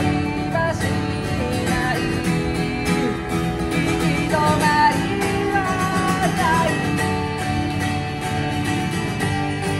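A man singing live to his own strummed acoustic guitar, his voice carrying a bending melody over steady strummed chords.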